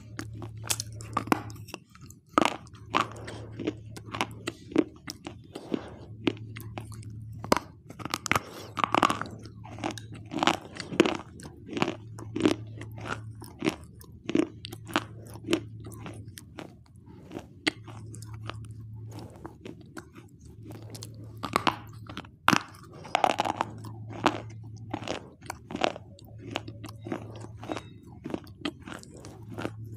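Repeated sharp crunches and chewing as a person bites pieces off a hard white chalky bar and grinds them between the teeth, close to the microphone.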